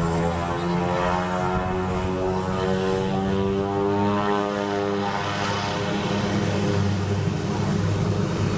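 Pilatus PC-6 Turbo Porter's turboprop engine running, a steady propeller drone under a thin high turbine whine that climbs slowly in pitch. The drone turns rougher and noisier in the second half.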